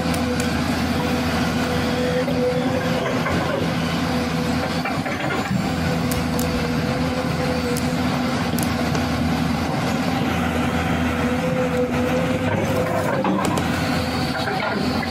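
Engine-like machine drone running steadily at an even pitch, with a few faint clicks.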